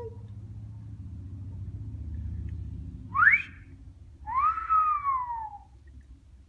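African grey parrot whistling: a short whistle rising in pitch, then a second, longer whistle that arches and falls away.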